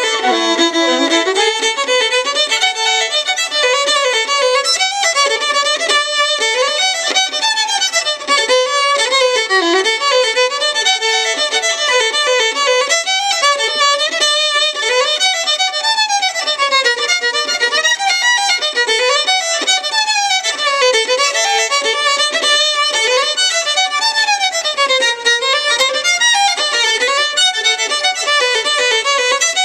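Panasoffkee Guarneri-model fiddle played solo: a fast tune packed with quick runs of notes climbing and falling.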